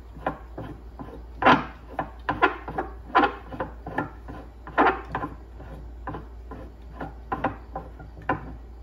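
A compression driver being unscrewed by hand from its threaded mount at the centre of a subwoofer, giving irregular clicks and scrapes as it turns. Louder clicks come about every second and a half to two seconds, one with each twist of the hand. A steady low hum runs underneath.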